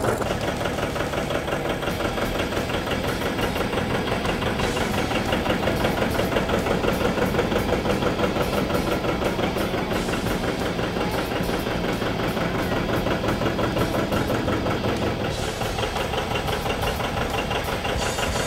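John Deere 820's big two-cylinder diesel engine running steadily with an even, rhythmic beat, just after being started by its gasoline pony engine.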